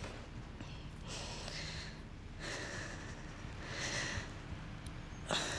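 A woman's nervous breathing close to the microphone: several audible breaths, about one every second and a half, as she struggles to carry on speaking.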